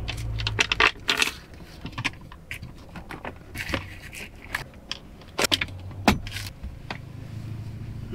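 A blanket and bedding rustling as a person shifts and settles into bed, with scattered light clicks and knocks from handling things nearby.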